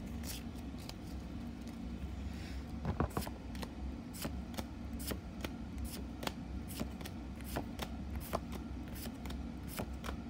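Trading cards being flicked through one at a time in the hand, each card sliding off the stack with a short snap, about two or three a second, with a denser flurry about three seconds in, over a steady low hum.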